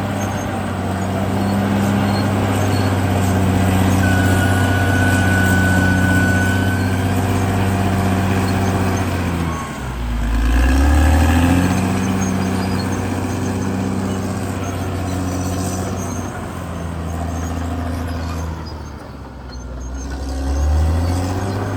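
Caterpillar D6R XL bulldozer's diesel engine working, steady, with its pitch dropping and climbing back twice as the load changes. A thin high squeal sounds for a few seconds early in the stretch.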